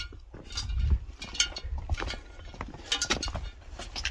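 Footsteps scuffing and knocking on rock as hikers clamber over boulders in irregular steps, over a low rumble.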